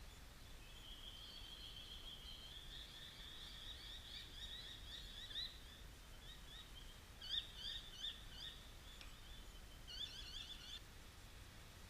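Faint bird song: a long run of quick, high chirps from about a second in, breaking into short rapid trills in the second half and stopping shortly before the end.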